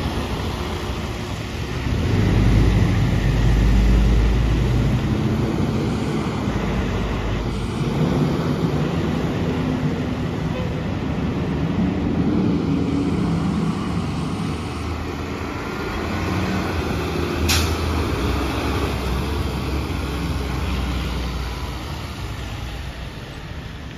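Street traffic on wet pavement. A diesel tractor-trailer's engine rumbles past close by a couple of seconds in, then steady engine and tyre noise continues as a fire engine drives past without its siren. There is a single sharp click about two-thirds of the way through.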